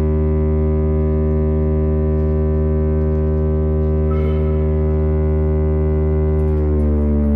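Chrysler Bell Victory air raid siren sounding a loud, steady tone; about six and a half seconds in its pitch starts to fall.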